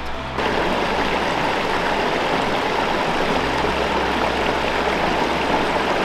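Rocky creek running over stones: a steady rushing, splashing water noise that cuts in suddenly within the first half second. A low bass line of background music continues beneath it.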